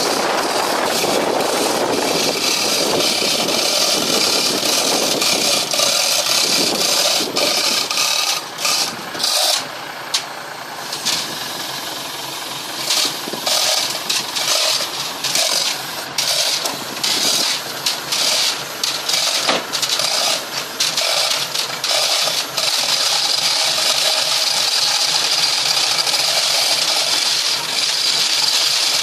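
Faulty boat engine running, its sound faltering and dropping out irregularly through the middle stretch, then running evenly again.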